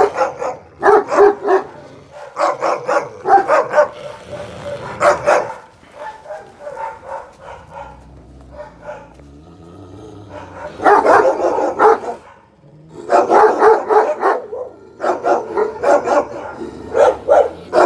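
Alabai (Central Asian Shepherd dog) barking at a wolf through a fence, in quick runs of barks. The barking eases off for a few seconds in the middle, then starts up again.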